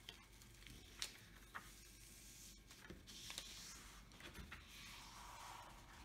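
Faint rustling and crackling of the cover paper being peeled back off a glue-coated diamond painting canvas and folded aside, with a few soft ticks.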